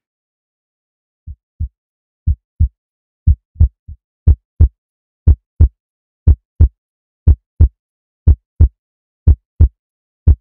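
Heartbeat sound effect: paired deep thumps, a lub-dub about once a second, getting louder over the first few seconds and then steady.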